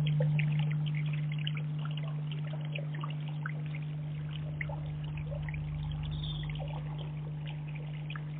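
Small scattered drips and trickles of water in a garden pond, easing off, over a steady low hum.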